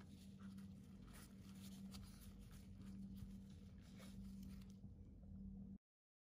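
Faint scratchy rustling of thin flatbread handled with gloved hands as it is folded and rolled into a wrap, over a steady low hum. It all cuts off abruptly near the end.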